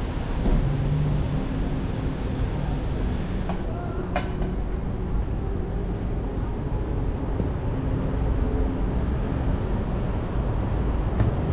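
Road traffic on a city high street: a steady rumble of vehicles running by, with a brief sharp high squeak about four seconds in.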